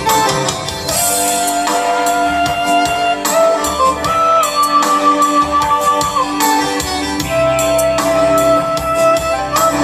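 Live band music: guitar and drums under a melody of long held notes that slide between pitches.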